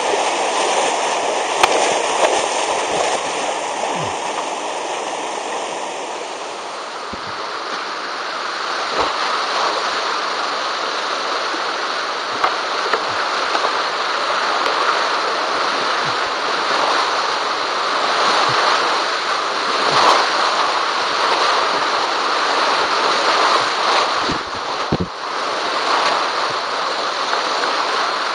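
Steady rush of Class IV–V whitewater rapids tumbling over boulders, heard up close from a kayak, with short knocks here and there. The audio is sped up to double speed.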